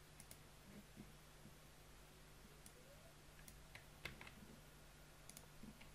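Near silence with faint, scattered clicks of a computer keyboard, a few isolated ones early on and a small cluster around the middle, over a faint steady low hum.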